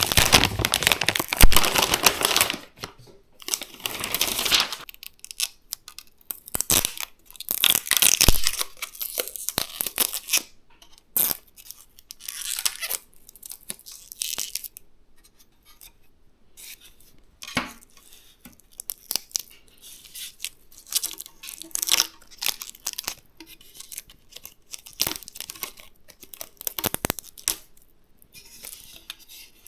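Plastic packaging being crinkled and torn in irregular bursts, with short clicks and light knocks in between, as a graphics card is unwrapped and handled.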